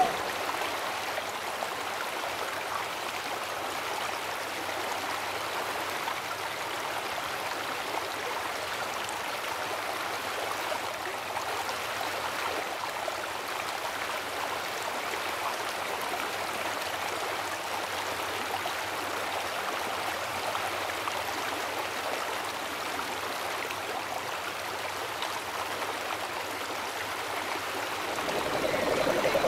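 Rushing water of a fast river running over rocks in rapids, a steady even noise. Near the end a second, pitched sound begins to rise over it.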